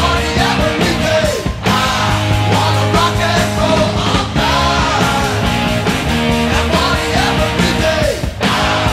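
Loud rock music with a steady beat and a singing voice.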